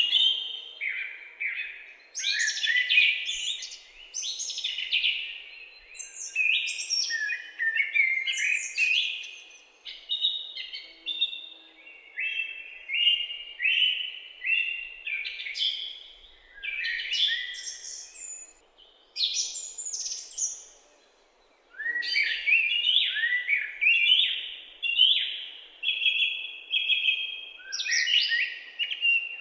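Forest birdsong: a near-continuous stream of short, chirping and warbling phrases, with one short pause about two-thirds of the way through.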